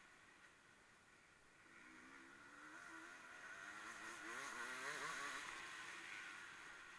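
Faint racing engine revving as it passes at a distance, its pitch rising and falling as it shifts, growing louder to a peak about four to five seconds in and then fading.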